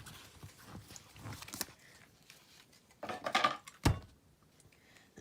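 Pokémon trading cards being handled: soft rustling and sliding, a louder spell of shuffling about three seconds in, and a sharp tap just before four seconds.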